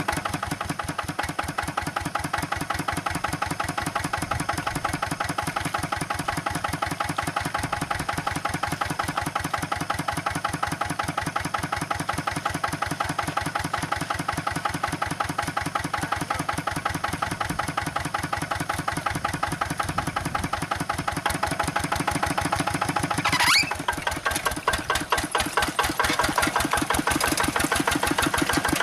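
Engine sound of a radio-controlled miniature hand tractor: a steady, rapid, even chugging like a small engine running, about ten beats a second. Near the end a brief rising whine cuts in, and the chugging then turns uneven.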